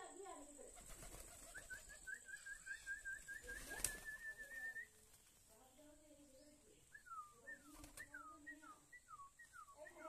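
A flock of domestic pigeons cooing softly while they feed on scattered seed. A fast run of high chirps comes a second or two in, and a series of falling chirps comes near the end. There is one sharp click a little under four seconds in.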